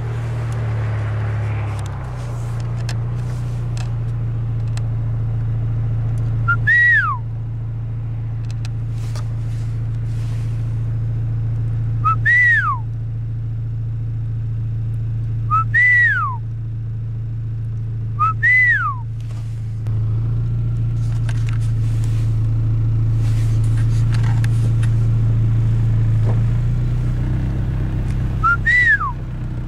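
Steady low rumble of a vehicle engine running, with a short whistled call five times, each a quick rise then a falling glide.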